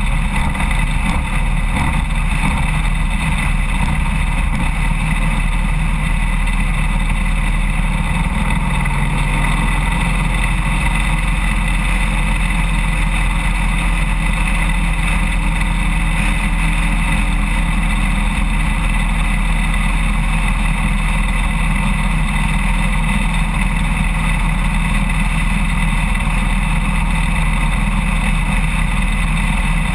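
Harley-Davidson Road King motorcycle cruising steadily at highway speed, its Evolution V-twin engine running under a constant rush of wind and road noise.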